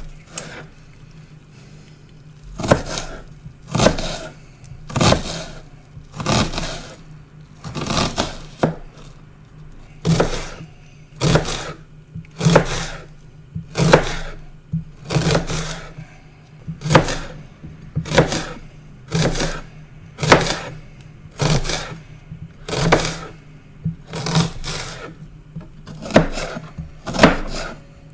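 Knife chopping an onion on a cutting board, in slow, separate strokes about one a second.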